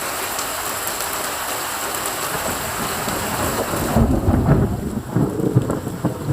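Heavy rain hissing steadily. About four seconds in, a loud, low rumble of thunder breaks in and rolls on almost to the end.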